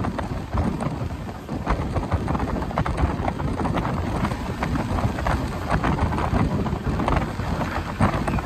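Passenger train running at speed, heard from on board: a loud steady rumble broken by many sharp clicks and clatters of wheels over rail joints and points as the train picks up speed.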